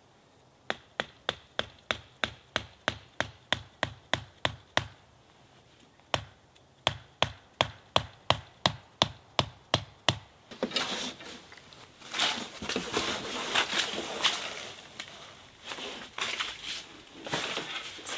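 Wood being chopped with quick, even strikes, about three a second, in two runs separated by a short pause. These are followed by irregular crackling and rustling.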